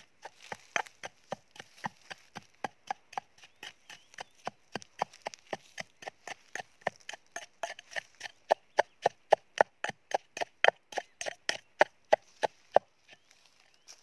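Wooden pestle pounding ingredients in a metal bowl: steady knocks at about three to four a second, getting louder in the second half and stopping about a second before the end.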